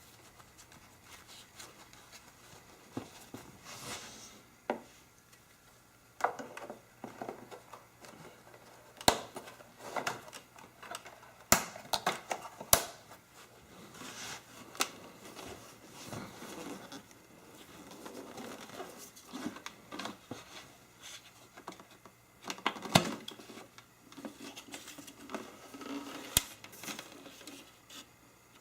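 Plastic parts of a Dirt Devil cyclonic vacuum cleaner being handled and taken apart: irregular clicks, knocks and rustling, with a few sharp snaps.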